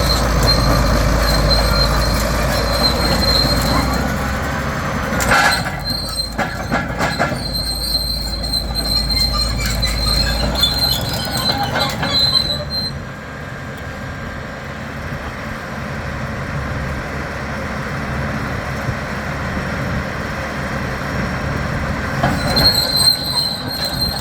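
Caterpillar D6R crawler dozer travelling on its steel tracks: a high, steady squeal of track metal over the diesel's low rumble, with clanking and a sharp knock about five seconds in. The squeal and the rumble drop away about halfway through, and the squeal comes back near the end.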